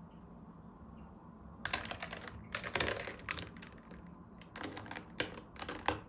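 Quick light clicks in two bursts, the first starting a little under two seconds in and the second about four and a half seconds in.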